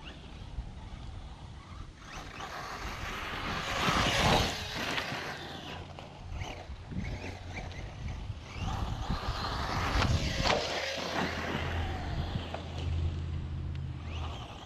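Team Redcat TR-MT10e brushless electric RC monster truck driving over dirt, loudest twice as it comes near, with wind on the microphone. A steady low hum comes in near the end.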